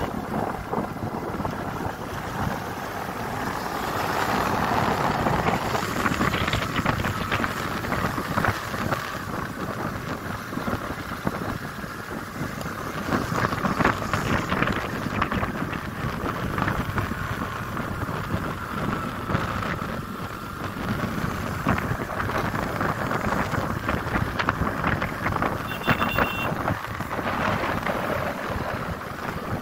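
Gearless motor scooter being ridden along a road: the engine running under steady wind rush on the microphone.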